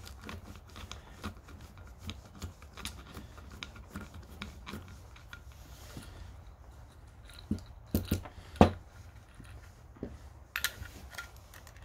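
Screwdriver turning small screws out of a motorized-bike carburetor, with light metal ticks and scrapes as the parts are handled, and a few louder clicks about eight seconds in.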